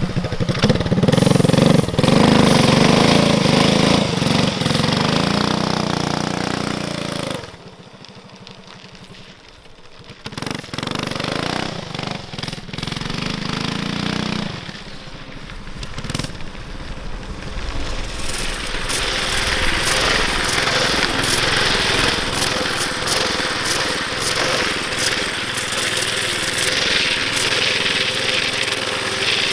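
Tillotson 212 single-cylinder engine on a drift trike running and revving up and down under load. It drops away about seven seconds in, picks up again a few seconds later, and carries on with a rushing noise over it in the second half.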